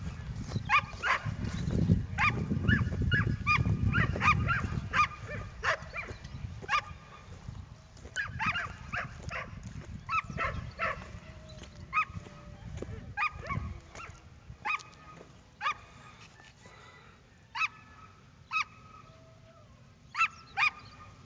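A dog barking over and over in short, sharp barks at an uneven pace, thickest in the first few seconds and again near the end. A low rumble, like wind on the microphone, runs under the barks for the first few seconds.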